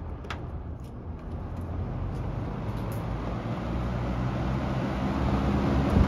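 1981 Lakewood P-223 20-inch box fan switched from low to medium: the rotary speed switch clicks once just after the start, then the rush of air and motor hum grow steadily louder as the blade speeds up.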